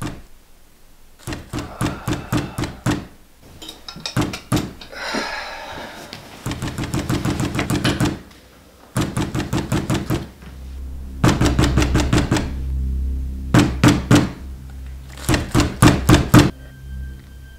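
Repeated bursts of knocking on a wooden door, some slow and one a rapid run of blows, coming in short groups with pauses between. A low sustained music drone comes in about ten seconds in and holds under the later knocks.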